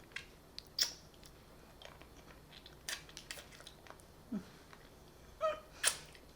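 Quiet mouth sounds of someone eating a hard candy: scattered clicks and crunches of the candy against the teeth, with a couple of short murmurs about two thirds of the way through.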